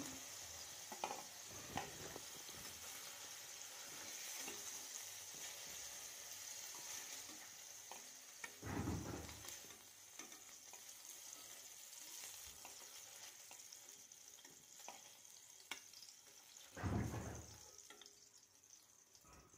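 Faint sizzling of hot oil in a stainless steel kadai as fried paneer cubes are lifted out with a steel spatula, with light scrapes and clicks of the spatula on the pan. Two dull thumps stand out, about nine seconds in and again near the end.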